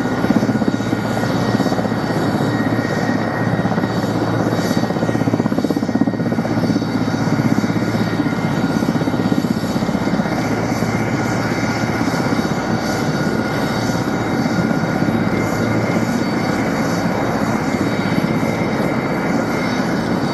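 Mil Mi-8 helicopter's twin turboshaft engines running with a steady high whine over the rapid, even beat of the main rotor as it taxis across the apron.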